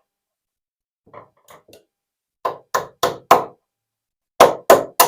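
Sharp knocks seating the saw's medallion into its wooden handle: a few faint taps, then four quick strikes about three a second, and after a short pause three more.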